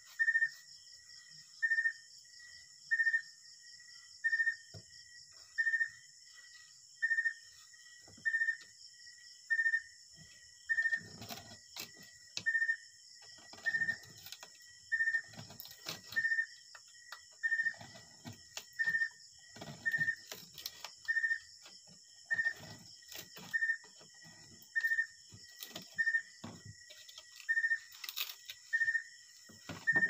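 A knife scraping and shaving a bamboo stick in irregular strokes, starting about a third of the way in. Throughout, a short high-pitched chirp repeats about once a second and is the loudest sound, over a steady high hiss.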